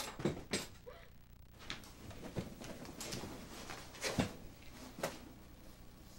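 Scuffling around a plastic skeleton Halloween prop as it is knocked over and broken apart, heard as a string of separate knocks and thumps, the loudest about four seconds in.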